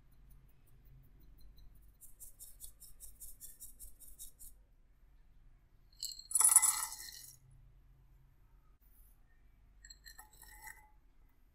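A fine metal mesh sieve tapped in quick ticks, about five a second, as flour is sifted through it. About six seconds in, chopped cashew nuts are poured from a small glass bowl into a glass mixing bowl with a short, loud clinking clatter. Near the end, raisins poured in give a few softer clinks.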